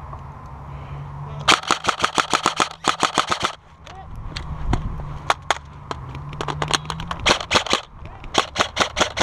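Airsoft guns firing: a fast burst of sharp snaps about a second and a half in, scattered single shots, then another rapid burst near the end.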